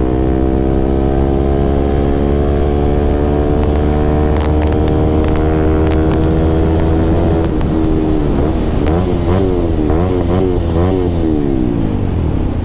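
KTM RC200's single-cylinder engine through an aftermarket SC Project-style full-system exhaust while riding. For the first half it holds a steady note that slowly sinks in pitch, then the throttle is blipped up and down in several quick revs, and the note drops away near the end.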